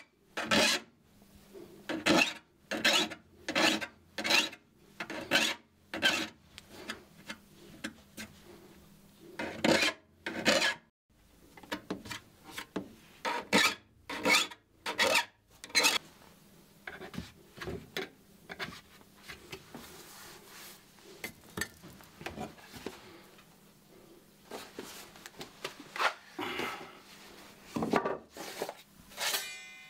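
Hand file rasping across the rip-cut teeth of a Japanese ryoba saw during resharpening, in short, even strokes about one and a half a second with a brief pause partway. About halfway through, the strokes stop, giving way to fainter scattered scraping and light knocks as the saw is handled.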